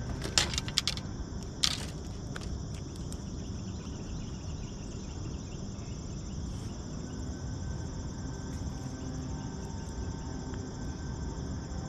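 Insects, crickets or the like, making a steady high chorus over a low, constant rumble. A quick run of sharp clicks comes about half a second in, and one louder click follows near two seconds in.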